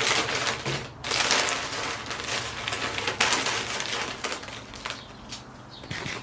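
Foil crisp packet crinkling and crackling as it is handled and set down on a table, in several bursts that thin out near the end.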